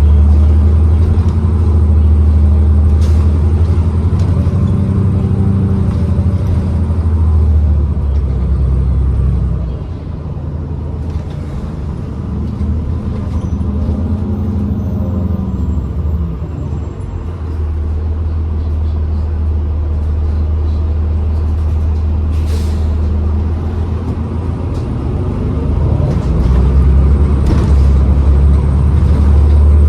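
Interior of a New Flyer XDE40 diesel-electric hybrid bus, with a heavy low drivetrain hum. The bus slows to a stop about a third of the way in with air-brake sounds and a short air hiss, then pulls away again near the end.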